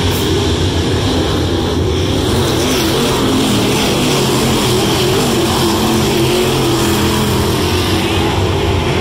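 Dirt late model race cars' V8 engines running hard around the track, a loud steady drone whose pitch wavers up and down as the cars accelerate and lift.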